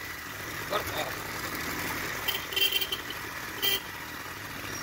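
Motorbike riding along a winding road with wind rushing over the microphone, and a horn sounding twice past the middle: a longer toot, then a short one.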